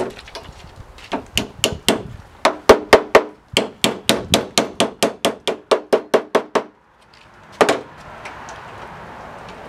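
Hammer striking the sheet-metal tailgate patch of a 1953 Mercury M100 truck, knocking out a corner of the patch panel. A quick run of blows, about four a second, with the panel ringing under them. The blows stop just before seven seconds, and one last blow follows shortly after.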